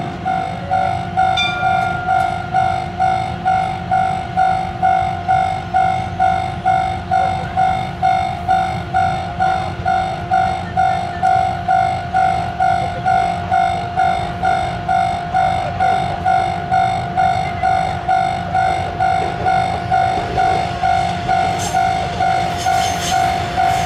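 Japanese railway level-crossing warning bell ringing steadily, about two strikes a second, as a single-car diesel railcar approaches. A few sharp clicks come from the railcar near the end.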